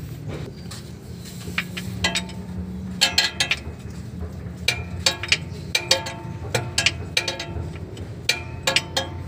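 Steel combination wrench clinking against a bolt on the vehicle's underside as it is turned and refitted: clusters of sharp metallic clinks with a short ring, starting about two seconds in and recurring every second or so.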